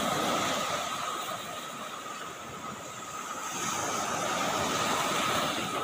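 Small waves breaking and washing up a sandy beach, the surf swelling twice, about a second in and again near the end. A thin steady high tone sits under the wash.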